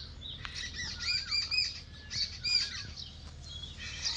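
Small birds chirping: quick runs of short, high, arching chirps, repeated several times.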